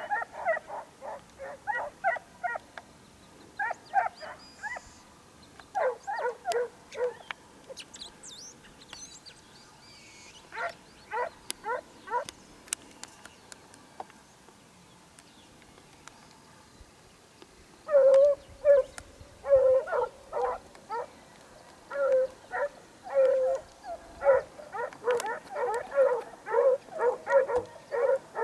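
Hunting dogs baying on a hare's trail, in broken runs of quick barks several a second; the bouts come thicker and louder in the second half.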